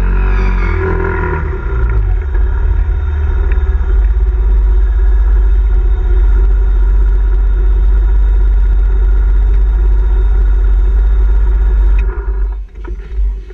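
Yamaha Zuma 125 scooter's single-cylinder four-stroke engine running hard during a burnout, the rear tyre spinning on concrete. The revs dip and settle in the first couple of seconds, then hold steady, and the engine drops away suddenly near the end as the throttle is let off.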